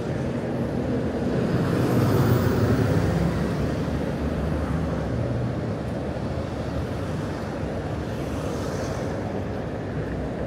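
City street traffic: a steady rumble of passing vehicles. It swells about two seconds in, as if a vehicle passes close, then settles back.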